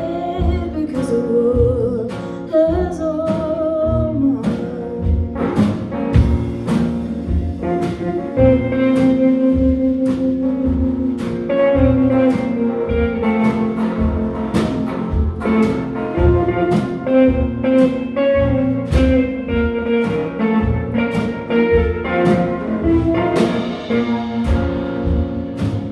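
Live band playing an instrumental break in a slow jazz-blues song: guitar and bass under a lead melody line, with a steady beat.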